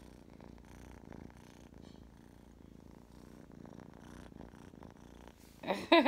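Domestic cat purring steadily and faintly, with the phone microphone held right up against its fur.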